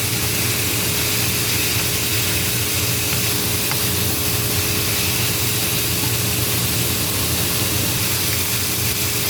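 Pork searing in hot oil in a pan, giving a steady sizzling hiss, with a faint steady hum beneath it.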